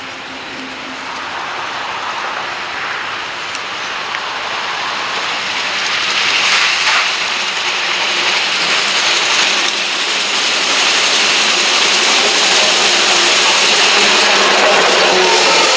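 Norfolk & Western 4-8-4 J-class steam locomotive No. 611 approaching and passing close by, a steady hissing rush of steam and running gear that grows louder as it nears.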